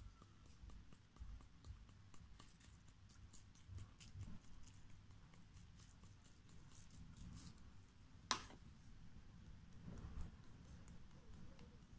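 Faint scattered ticks and patter of glitter and beads shaken from a small jar onto foam slime, with one sharper click about two-thirds of the way through.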